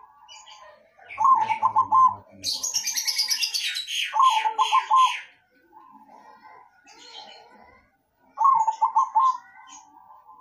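Caged perkutut (zebra dove) cooing in the old-style song its keepers call noklak: three short phrases of quick, low coo notes, about one second in, around four seconds in and again near the end. From about two and a half to five seconds in, a fast run of high, rapid chirps from another bird overlaps the second phrase.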